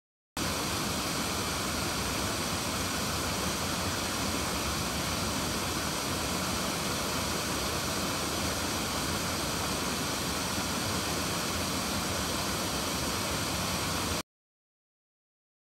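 Waterfall pouring over a rock ledge: a steady, even rush of falling water. It cuts in just after the start and cuts off suddenly about a second and a half before the end.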